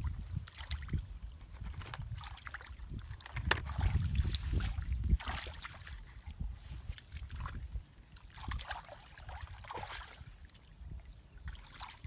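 Hands splashing and sloshing through shallow muddy water in irregular bursts, over a constant low rumble.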